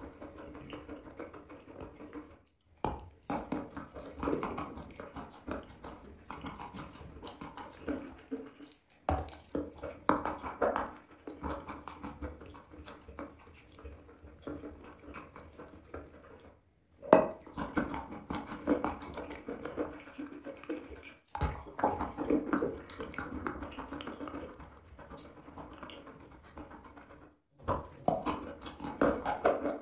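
Close-miked wet crunching and sticky chewing of chalk coated in wet clay, an irregular run of crackles and squelches broken by several brief dropouts.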